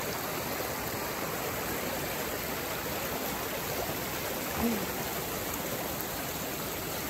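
Fast-flowing forest creek rushing over rocks and riffles, a steady, even rush of water.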